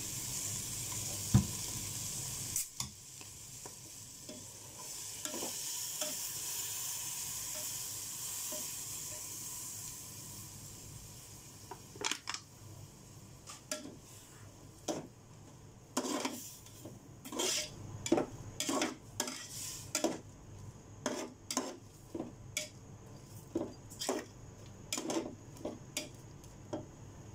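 Shrimp sizzling in a large aluminium pot, with one sharp knock about a second in; the sizzle fades over the first ten seconds or so. Then a slotted metal ladle scrapes and knocks against the pot in quick, irregular strokes as the shrimp are stirred.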